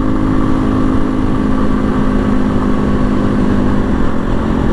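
Janus Phoenix 250 motorcycle's single-cylinder engine running steadily at cruising speed, heard from the rider's position, with wind and road noise.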